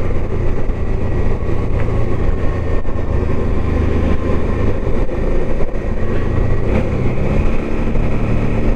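Motorcycle engine running steadily in a low gear on a steep descent, engine braking to spare the brakes.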